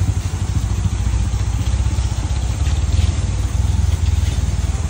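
Motorcycle engine idling: a steady, rapid low putter.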